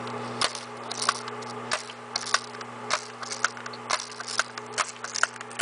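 A pump-action BB gun being pumped over and over: a string of sharp mechanical clicks, roughly two a second, over a steady low hum.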